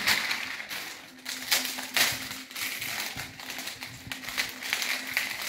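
Gift wrapping paper and a plastic packet crinkling and rustling in irregular handfuls as a present is unwrapped by hand.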